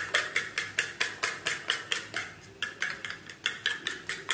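A metal spoon beating eggs and milk in a ceramic plate, clinking against the china about five or six times a second. There is a short pause a little past halfway, then the beating goes on.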